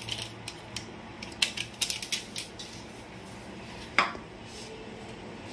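Foil Maggi masala sachet crinkling and being tapped as the spice powder is shaken out of it, a run of quick crackly rustles and clicks over the first two and a half seconds. A single sharp click about four seconds in.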